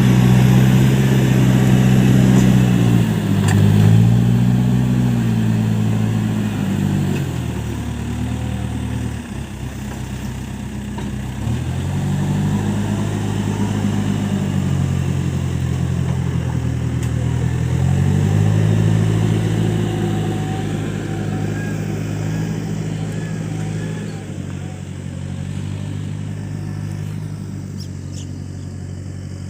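Case backhoe loader's diesel engine running while working, its speed rising and falling several times, then settling lower and quieter over the last part.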